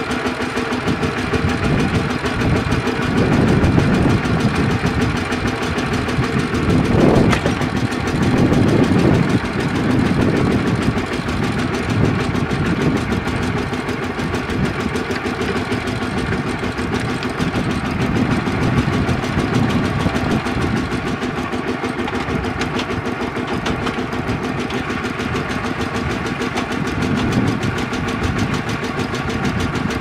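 Two-wheel walking tractor engine idling steadily, with a single sharp knock about seven seconds in.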